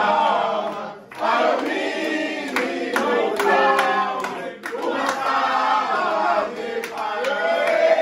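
A crowd of young men singing and chanting together, loud, in long phrases broken by short pauses about a second in and again near the middle.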